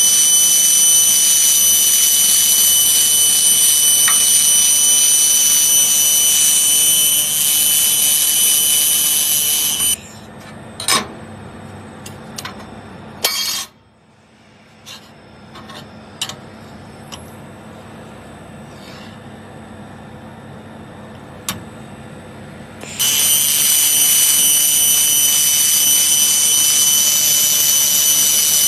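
1000 W handheld fiber laser welder welding steel plate: a loud steady hiss with steady high tones, stopping about ten seconds in. A quieter stretch follows with a few knocks and clicks of metal pieces being handled, then the welding hiss starts again near the end.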